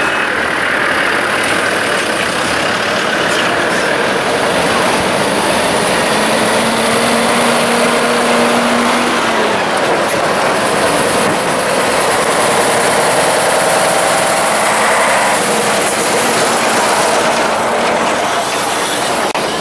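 Military column of Land Rover Defender off-roaders and heavy army trucks driving slowly past, a steady mix of engines running close by.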